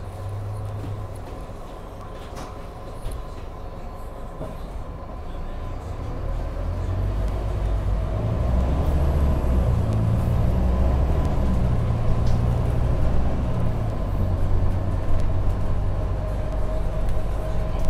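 Scania K310UB bus's rear-mounted five-cylinder diesel engine running, heard from inside the rear of the cabin, its low rumble growing louder from about six seconds in as it pulls under power.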